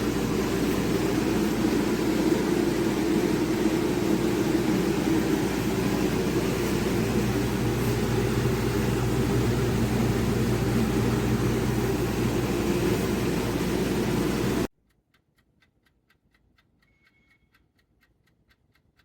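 Steady, loud mechanical hum and rush, strongest in the low range, that cuts off abruptly about 15 seconds in. It gives way to near silence with faint, rapid, regular ticking.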